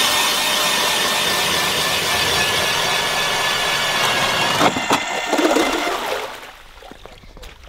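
Powered ice auger drilling through lake ice, its motor whining steadily as the spiral blade cuts. About two-thirds of the way through the sound changes with a few sharp knocks as the auger breaks through and slush water wells up into the hole, then it stops near the end.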